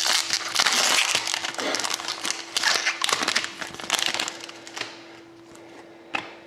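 Clear plastic trading-card sleeve crinkling and rustling as a hockey card is worked out of it by hand. The rustle fades after about five seconds, and a sharp tap of the card on the table follows near the end.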